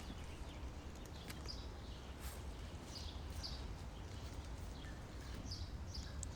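Small forest birds giving short, high, falling chirps several times over a steady low rumble, with a few faint knocks.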